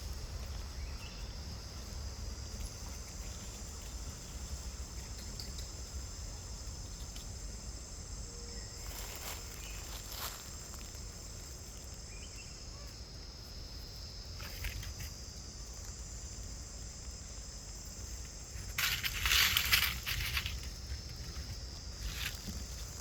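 Steady high-pitched chorus of insects, with a few short rustles, the loudest about nineteen seconds in.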